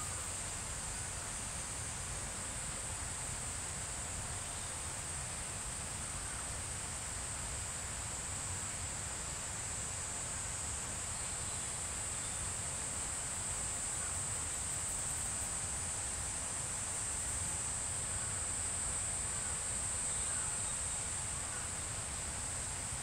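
Steady high-pitched insect chorus, one continuous shrill drone that swells slightly past the middle, over a faint low rumble.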